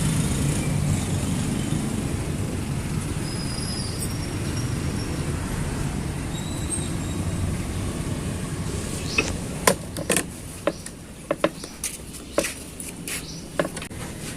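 A vehicle's low steady rumble that fades after about nine seconds, followed by a run of sharp clanks and knocks of tools on metal during the clutch work.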